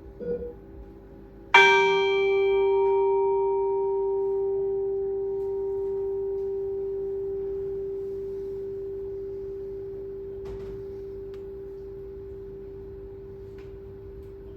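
A metal bell struck once, about a second and a half in, ringing with one strong low tone and a spread of higher overtones. The overtones fade within a few seconds while the low tone hangs on and slowly dies away. A short soft sound comes just before the strike.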